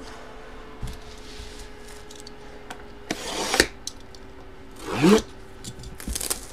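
Hands rubbing and sliding a cardboard hobby box across a tabletop. There are two raspy scrapes: the louder about three seconds in, and a second about five seconds in that ends in a short rising squeak. A few light taps follow near the end.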